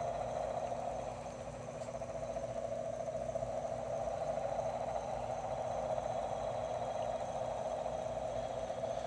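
A steady, unbroken mid-pitched droning hum, dipping slightly in level about a second in and then holding even, of unknown origin; it sounds to the listener like a helicopter parked behind the nearby buildings.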